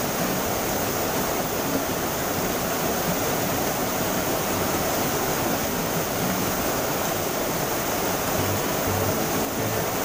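Rushing water of a shallow rocky river tumbling over a small cascade between boulders: a steady rush.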